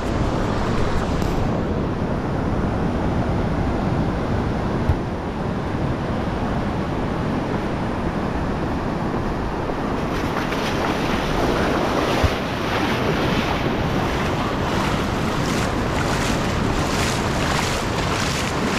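Sea surf washing onto the shore, with wind buffeting the microphone. About halfway through the wash turns hissier, with repeated surges of spray.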